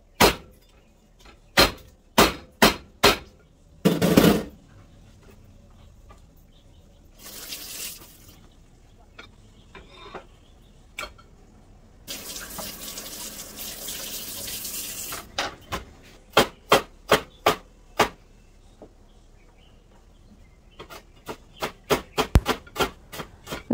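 A cleaver chopping on a plastic cutting board in sharp single strikes. In the middle a kitchen tap runs for about three seconds. Near the end a knife chops garlic and ginger quickly on the board.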